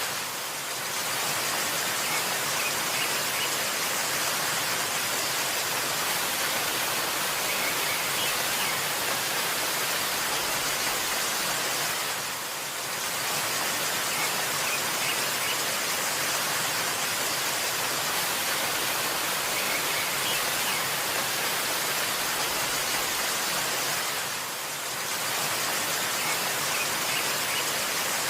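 Waterfall rushing in a steady, dense hiss, dipping briefly about every twelve seconds, with a few faint bird chirps now and then.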